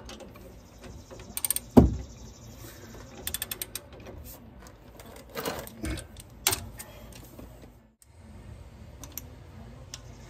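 Socket ratchet clicking in short quick runs as the brake caliper bolts are run down, with a couple of sharp metal knocks.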